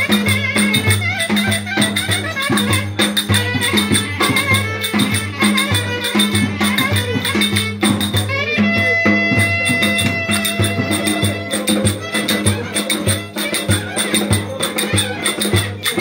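Lively Turkish folk dance music (oyun havası) with a steady drum beat, a melody line and rattling hand percussion. About halfway through, the melody holds one long note for a few seconds.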